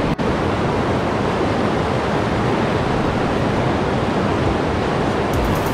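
A river rushing over rocks and small rapids: a steady, even rush of water.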